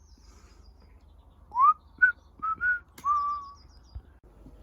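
A person whistling a few notes: a rising note, then three short ones and a longer held note that falls slightly. Faint high chirping sounds twice in the background.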